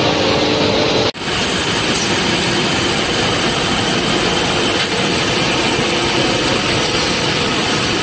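Glass grinding and polishing machine running: a loud, steady mechanical noise with a high whine. The sound drops out briefly about a second in.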